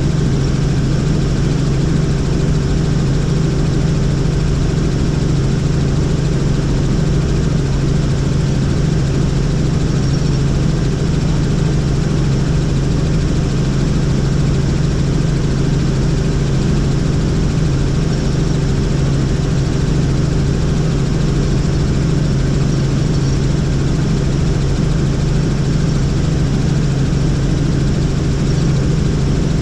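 Helicopter engine and rotor running, a loud, steady low drone with several held tones and an even hiss that does not change.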